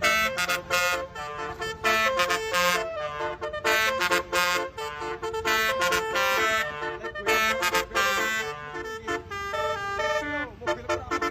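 Basuri multi-tone musical horn playing a quick melody of short, stepped notes. Near the end the pitch slides down.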